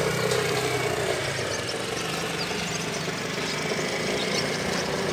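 Motor scooter engine running steadily.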